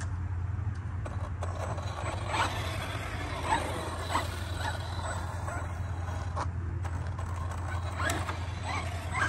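ARRMA Mojave 4S RC truck's brushless electric motor giving short rising whines as it is throttled in quick bursts, about eight times from two seconds in, over a steady low hum.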